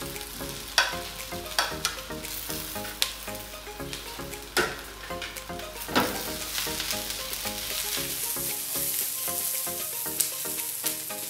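Chopped mushrooms sizzling as they go into a hot non-stick frying pan with onion and garlic frying in oil and are tossed, with about six sharp clacks of utensil and pan. The hiss grows louder in the last few seconds as the pan is shaken.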